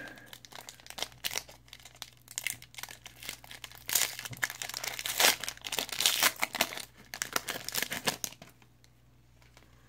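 Crinkling and tearing of a trading-card pack's wrapper as it is opened and handled, with irregular crackles that stop about eight and a half seconds in.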